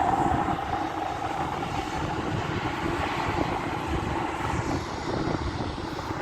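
Boeing 737-800's CFM56 jet engines running as it passes, a strong whining tone that slowly falls in pitch and weakens, over a rumbling roar. Wind buffets the microphone underneath.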